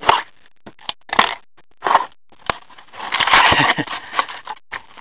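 A sealed Upper Deck Masterpieces hockey card box being opened with a box cutter: a few short scrapes and rustles of blade, wrap and cardboard, then a longer crinkling rustle about three seconds in as the stack of card packs is pulled out.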